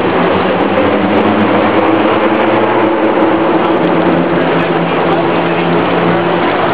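Steady, loud street and traffic noise with a low engine hum running through it.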